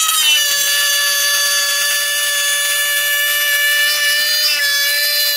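Black & Decker corded rotary tool with a small cutting disc, switched on and running at low-to-medium speed with a steady high whine as it cuts around the edge of a blow-molded plastic case insert.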